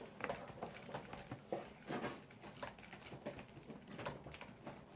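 Irregular light clicks and taps of utensils and containers being handled while slime ingredients are mixed.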